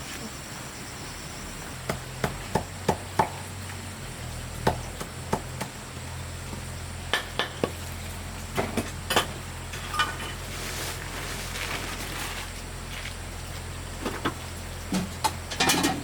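Scattered light knocks and clicks, irregular and a few at a time, over a steady low hum, with a cluster of louder knocks near the end.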